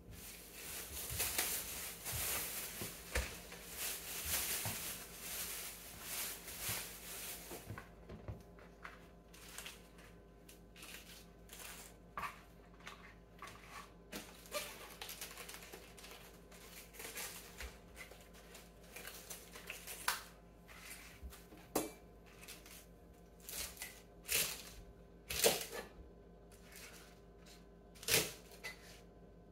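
Cabbage leaves being pulled off a head and laid on a plastic cutting mat, then cut with a kitchen knife, with a few sharp knife knocks on the mat near the end. A dense crinkly rustling fills the first eight seconds, followed by scattered light clicks and leaf rustles.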